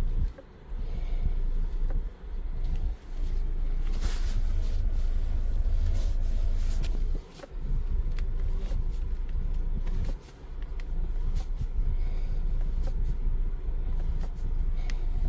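Steering column of a 2024–2025 Hyundai Sonata knocking: scattered, irregular short knocks and clicks over the low rumble of the car in motion, the fault the column knock points to.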